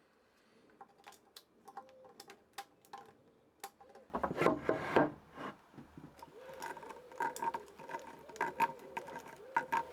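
Hand-tool work on timber: a run of light taps and knocks, then louder knocks and handling noise from about four seconds in.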